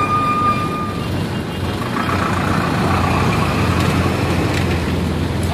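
Bus in motion through city traffic: engine running and road noise through an open window. A steady high tone sounds during the first second. From about two seconds in the noise grows louder and broader as another bus passes close alongside.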